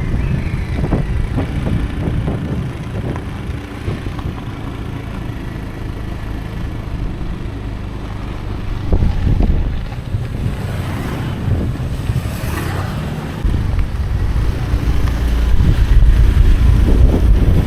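Honda scooter's small engine running under way, with wind buffeting the microphone. It gets louder in the last few seconds.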